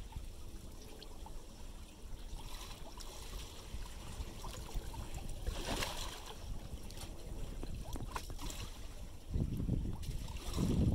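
Small estuary waves lapping against a stone sea wall, a brief splash about six seconds in, with a low rumble that grows louder near the end.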